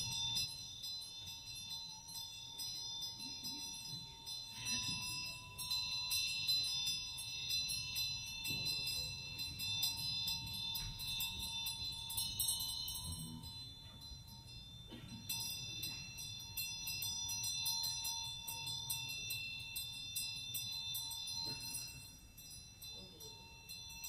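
Soft tinkling, bell-like jingle over several steady high ringing tones and a low murmur; the tinkling breaks off for about a second in the middle and the whole fades near the end.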